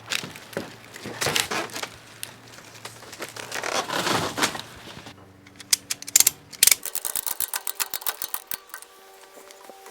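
Knocks and scrapes of junk materials being handled and loaded, including a longer scrape about four seconds in. After that comes a fast run of sharp mechanical clicks, which stop a little before the end.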